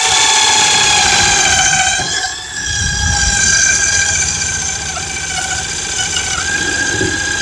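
Power drill motor running steadily at a high-pitched whine, with a brief dip in loudness about two seconds in as it meets load.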